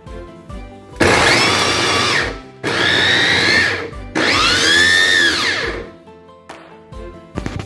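Kenwood electric mini chopper pulsed three times, chopping onion; each press makes the motor whine rise and then fall as it spins up and winds down. Faint background music plays in the gaps.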